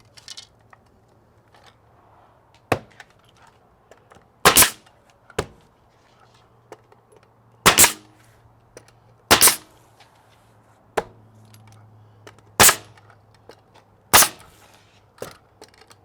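Nails being driven through a siding board into the wall: about ten sharp single shots spaced roughly one to two seconds apart.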